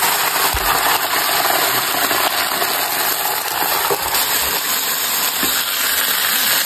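Braised beef hooves sizzling in a large iron wok, a steady hiss as sauce is ladled over them, with a few light knocks of the metal ladle.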